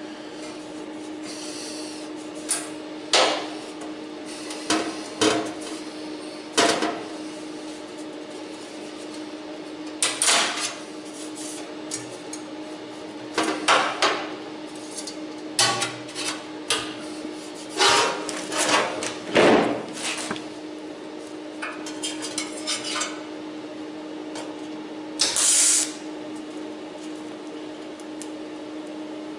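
Sheet-steel patch and locking pliers being handled and set against a pickup's inner fender: scattered short metallic clicks and clatters over a steady hum. It ends with a short crackling burst of MIG tack welding a few seconds before the end.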